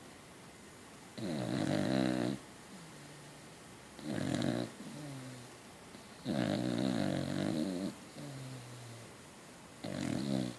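A sleeping beagle–cocker spaniel mix dog snoring loudly. There are four loud snores, roughly every two and a half to three seconds, and each is followed by a quieter, steady-pitched breath.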